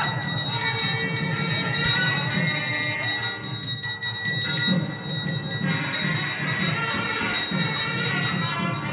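Temple bells ringing continuously through a lamp offering (aarti), with a steady jangling ring, over music with a melody and a pulsing low beat.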